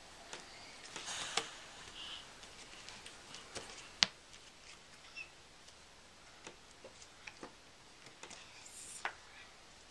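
Puzzle pieces tapping and clicking against a jigsaw puzzle board: a scatter of small, irregular knocks, the sharpest about four seconds in, with some faint rustling.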